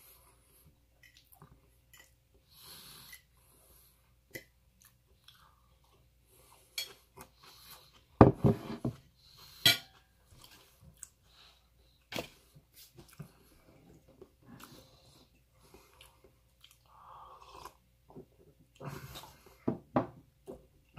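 A person chewing mouthfuls of white rice close to the microphone, with occasional clinks of a metal fork against a ceramic plate. A louder knock about eight seconds in, as the plate is set down on the table.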